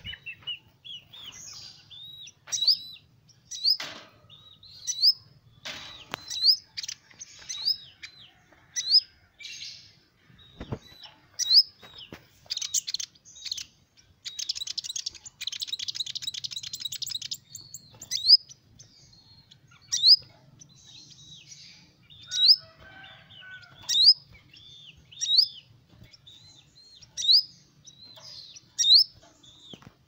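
Kolibri ninja sunbird singing: a short, high rising chirp repeated about once a second, with a fast rattling trill lasting about three seconds midway. A single sharp knock sounds about ten seconds in.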